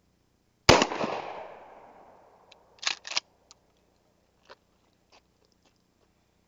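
Winchester SXP 12-gauge pump-action shotgun firing one loud shot that echoes and fades over about a second. About two seconds later the slide is racked back and forward with two quick clacks, followed by a few faint clicks.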